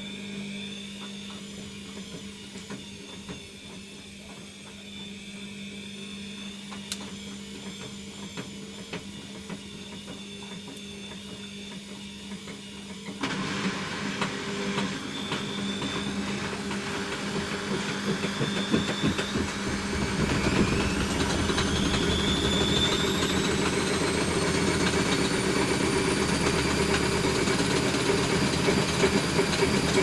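Front-loading washing machine with a steady hum from the drain pump while the drum turns slowly. About 13 seconds in the drum starts its intermediate spin. The motor whine rises steadily in pitch as it speeds up toward 500 rpm, then holds steady and louder with water swishing.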